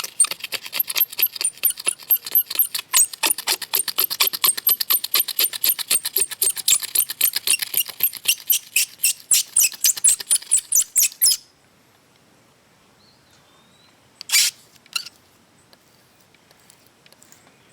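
Razor blade scraping cured windshield-repair resin off car windshield glass in rapid back-and-forth strokes, several a second, stopping suddenly about eleven seconds in; a single brief scrape follows a few seconds later.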